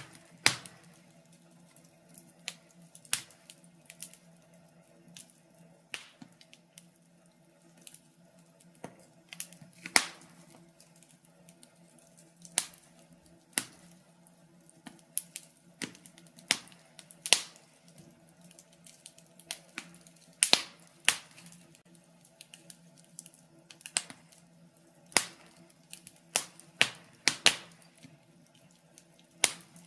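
Wood fire crackling in a fireplace: sharp pops and snaps at irregular intervals, some much louder than others, over a faint steady low hum.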